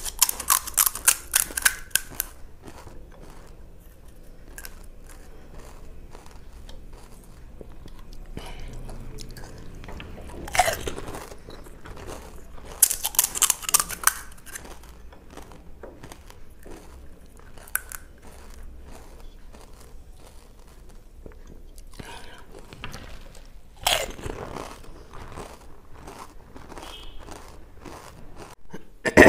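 Crisp, hollow pani puri shells being cracked open with the fingers: quick runs of crackling near the start and again about 13 seconds in, with single snaps about 10 seconds and 24 seconds in and chewing in between.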